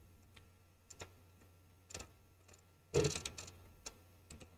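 Computer mouse clicks: a handful of sharp, scattered clicks, with a louder clatter about three seconds in, over a faint steady low hum.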